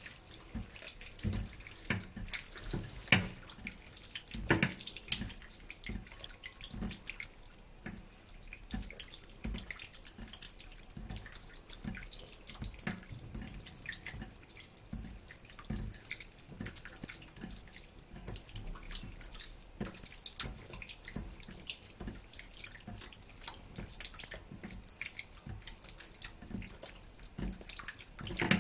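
A hand kneading and squeezing pieces of pork in a wet marinade of oil, water, starch and dark soy sauce in a bowl: irregular wet squelching and squishing, with a couple of louder squelches in the first few seconds.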